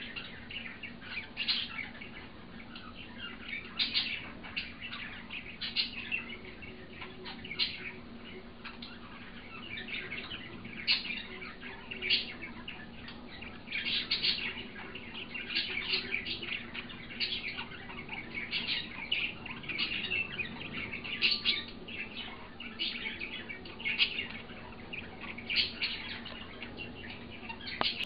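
Pet budgerigars chirping and chattering in many short bursts, over a low steady hum.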